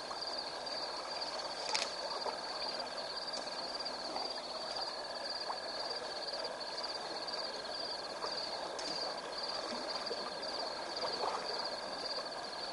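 Steady night chorus of insects and frogs: a fast-pulsing high trill over a steady lower tone and a soft hiss, with one sharp click about two seconds in.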